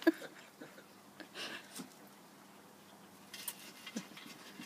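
Faint, scattered scratching and rustling of a Yorkshire terrier digging in the soil of a plant pot, with a few sharper ticks a little over three seconds in.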